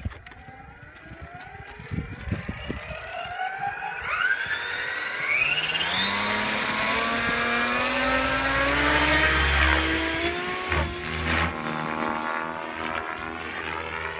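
Align T-REX radio-controlled helicopter spooling up: a whine from the motor, gears and rotor rises in pitch from about four seconds in. It then holds steady and fades a little near the end as the helicopter lifts off and climbs away.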